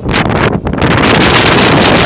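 Strong wind buffeting the microphone: a loud, rough rushing that thickens and steadies about a second in.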